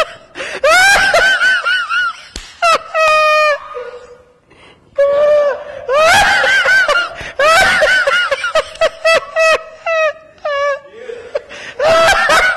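A man laughing uncontrollably in high-pitched, repeated bursts, gasping for breath between them, with a short quieter lull about four seconds in.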